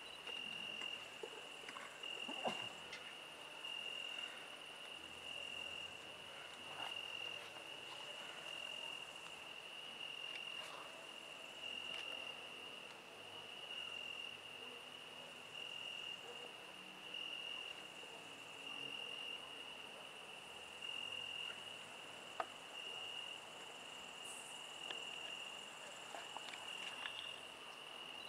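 Crickets chirping: a faint, steady, high pulsing trill, with a few scattered sharp clicks, the sharpest about 22 seconds in.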